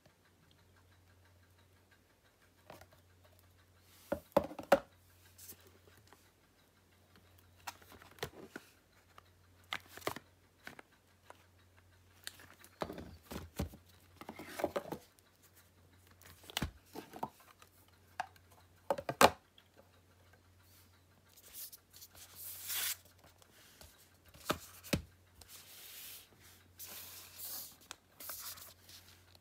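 Blu-ray collector's packaging being handled and opened: scattered clicks and knocks of cases and box, with longer stretches of rustling and tearing of the wrapping past the middle, over a steady low hum.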